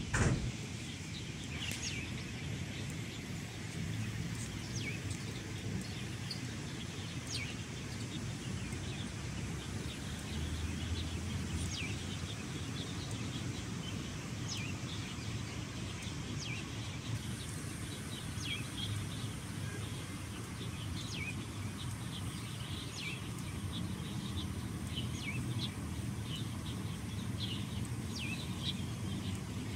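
Small birds chirping on and off over a steady low rumble of outdoor background noise, with one sharp click at the very start.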